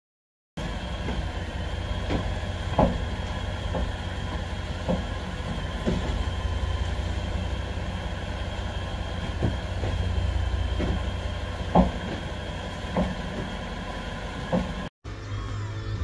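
Land Rover front suspension thumping again and again as the brakes are jabbed, a sharp clunk every second or two over a steady low rumble: the sign of worn lower control arm bushings.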